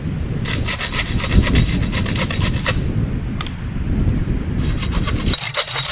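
Saw cutting through wood in two bouts of quick rasping strokes, the first starting about half a second in and the second starting near the end.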